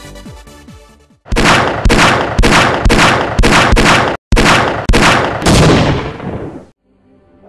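Soundtrack: an electronic music track fades out, then comes a run of about ten loud, sharp percussive hits, about two a second, each one dying away. A soft new piece of music begins near the end.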